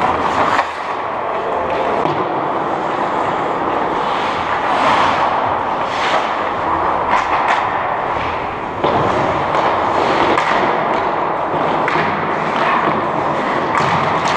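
Ice hockey play on an indoor rink: a steady wash of skate and rink noise with scattered knocks and thuds of sticks, puck and boards.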